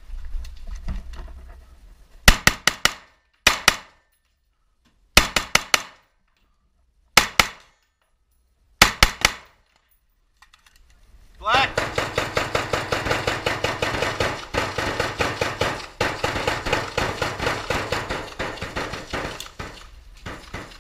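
Close military small-arms fire: five short bursts of a few shots each over about seven seconds, then about eight seconds of rapid, unbroken gunfire.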